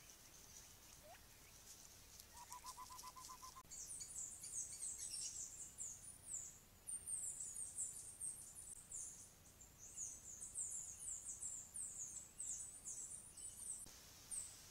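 Forest ambience: a dense run of high, thin chirps, each sliding quickly downward, repeated many times. About two seconds in there is a short, fast, lower trill.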